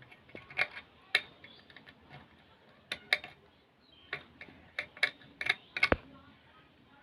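Irregular small clicks and taps, about a dozen scattered over several seconds, from a soldering iron and tools working on an amplifier circuit board while its solder pads are cleaned with flux paste.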